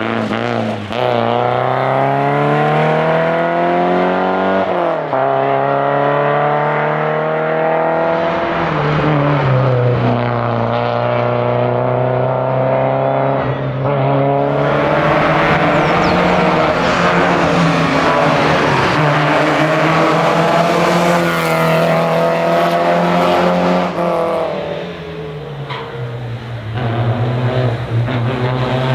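Porsche 944's four-cylinder engine under hard acceleration, revs climbing and dropping sharply at two upshifts, then held high before easing off and building again.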